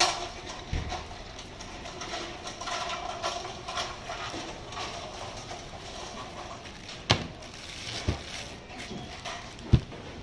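A long kitchen knife and pineapple knocking on a cutting board as the fruit is cut, a few separate sharp knocks with the loudest near the end, over steady background noise.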